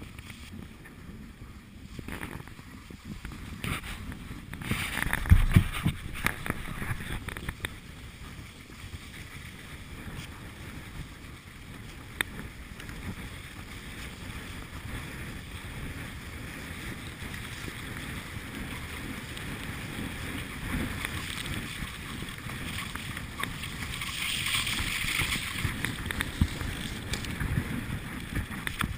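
Cross-country skis sliding over a groomed snow trail, a steady swishing hiss with scattered small ticks, and wind rumbling on the microphone, loudest about five seconds in.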